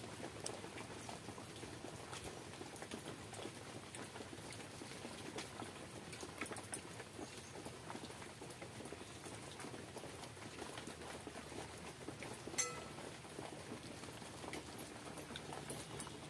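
Hand-eating sounds: fingers working water-soaked fermented rice in a steel bowl and pinching mashed brinjal on a steel plate, with wet chewing and many small clicks. One sharper click comes about twelve seconds in.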